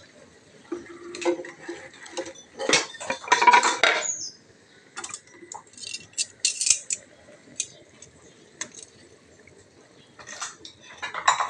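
Metal cookware and utensils clattering and clinking on a gas stove in irregular bursts, loudest a few seconds in and again near the end.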